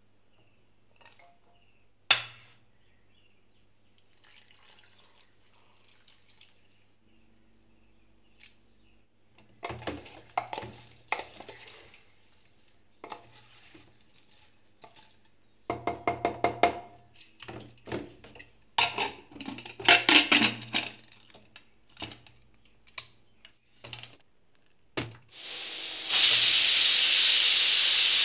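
A single sharp clink about two seconds in, then bouts of a utensil clattering and scraping against an aluminium pressure cooker pot as chopped tomatoes are stirred. Near the end, the pressure cooker's weight valve starts venting steam with a loud steady hiss.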